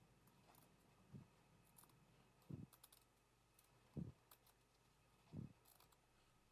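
Near silence broken by four faint soft thumps about a second and a half apart, with a few light clicks between them.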